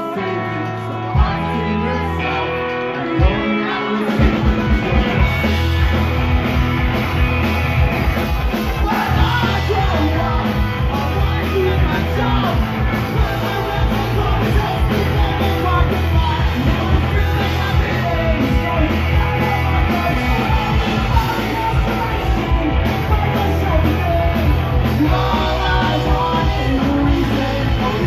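Punk rock band playing live: electric guitar, bass and drums, with vocals. Sustained chords ring for the first few seconds, then the full band kicks into a dense, driving section about four seconds in.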